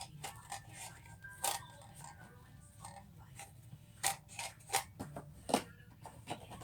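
Foam darts being loaded into a toy dart blaster: a scattering of light plastic clicks and taps at uneven intervals.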